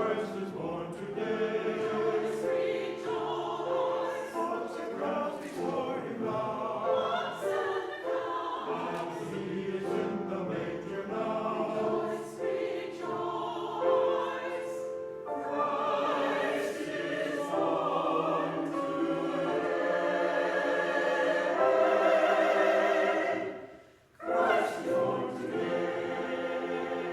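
Church chancel choir singing a Christmas choral piece in several voice parts, breaking off briefly about three-quarters of the way through before the voices come back in.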